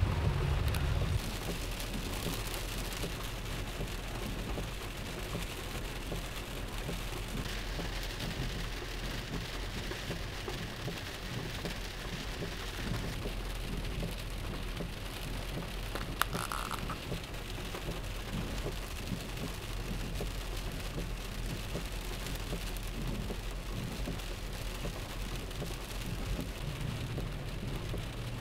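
Heavy rain pouring down on a car, heard from inside the car as a steady hiss over a low rumble. The low rumble is louder for about the first second, and a single short click sounds about sixteen seconds in.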